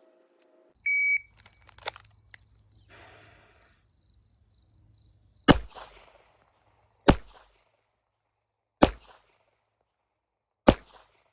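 Four slow, deliberate 9mm pistol shots from a Wilson Combat eXperior full-size, one about every 1.7 seconds, preceded about a second in by a short high electronic beep. The fourth shot is the last round: one short of the five the drill calls for.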